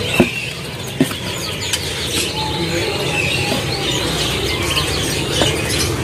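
Many caged songbirds chirping and calling at once, short scattered notes from several birds, with two light knocks in the first second.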